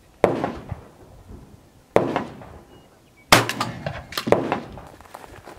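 Shotgun reports on an open range: three sharp blasts about a second and a half apart, the third the loudest, each fading out in a short echoing tail.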